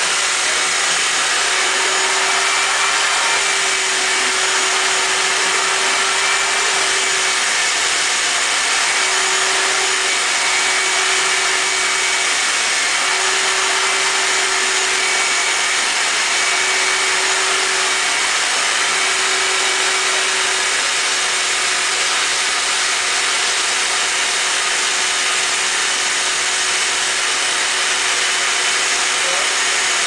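Vacuum cleaner running steadily, its hose nozzle held against a cockatoo's feathers. A faint hum in the rush of air wavers and shifts slightly during the first two-thirds.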